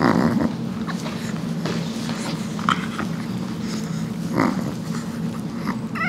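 Small dog growling low and steadily as its back is pressed during a chiropractic adjustment.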